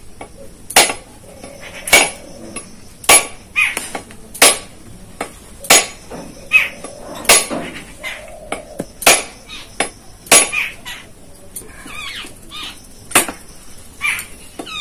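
A whole husked coconut being cracked open with a heavy curved knife (dao): hard, sharp knocks of the blade on the shell, about one a second, ten or so in all.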